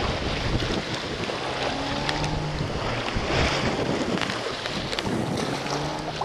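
Strong wind buffeting the microphone over the rush and splash of choppy, whitecapped water, heard aboard a small sailboat under way in a blow.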